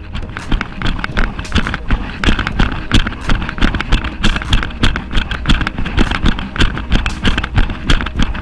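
A trail runner's own footfalls running downhill on a dirt single-track, an even rhythm of about three steps a second, heard close up with a low rumble underneath.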